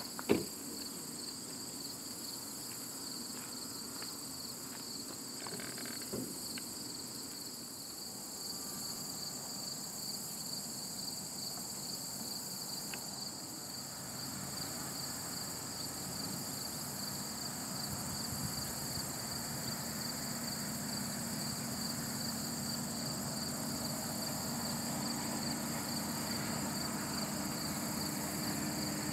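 A steady, high insect chorus with a fine pulsing texture. From about two-thirds of the way in, the low, steady engine sound of an approaching diesel freight locomotive grows louder underneath it.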